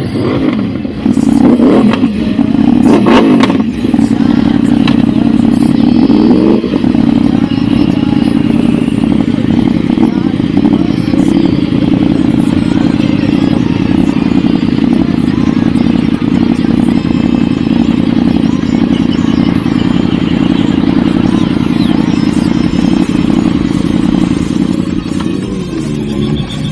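Superbike engines running in a group, with a few revs that rise and fall in the first seven seconds, then a steady idle; people talk over them.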